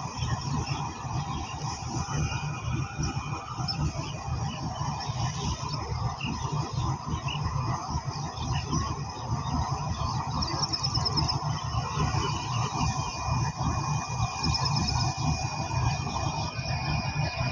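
GEU-40 diesel-electric locomotive idling with a standing train: a steady low engine rumble, with a thin steady high whine that is stronger in the second half.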